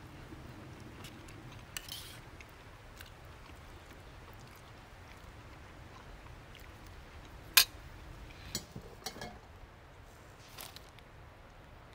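A metal spatula scraping and tapping in a steel camp frying pan: a short scrape about 2 s in, light scattered clicks, and one sharp click a little past halfway, followed by a few softer ones.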